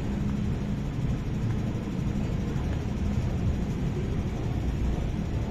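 MTR Tsuen Wan Line M-Train running along the platform behind the platform screen doors, a steady low rumble with a faint hum.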